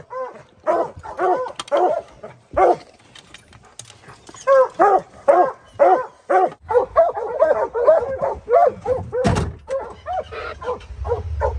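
Hunting hounds barking over and over, short arching calls about two a second, from a metal dog box. There is a thump about nine seconds in, and a low engine hum comes in during the second half.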